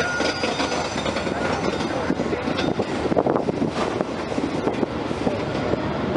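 Railway carriage running on curving track: steady rumble of wheels on rails with irregular clicks and rattles.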